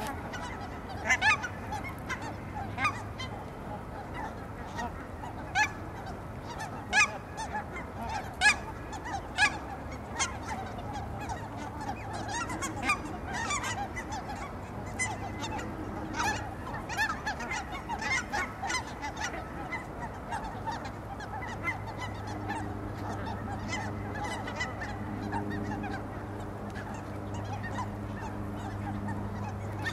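A flock of cackling geese calling: many short, high-pitched honks overlapping, loudest and thickest in the first third, over a steady low hum. A low steady drone joins in about two-thirds of the way through.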